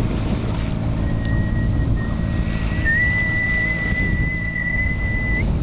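Wind buffeting the microphone and water rushing along a sailboat's bow, with a single high whistle held on one steady note for about four seconds, starting about a second in and growing louder halfway through.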